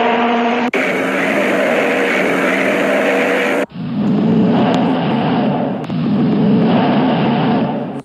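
Ocean liner and cruise ship horns in spliced clips: a steady low horn note that cuts off abruptly about three and a half seconds in, followed by a rougher, noisier horn blast.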